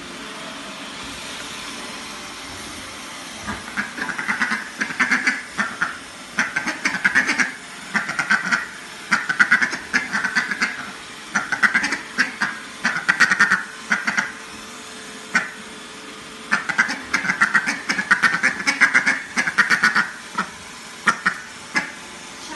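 Domestic duck quacking in repeated bursts of quick quacks, starting about three seconds in, over the steady hiss of a running vacuum cleaner.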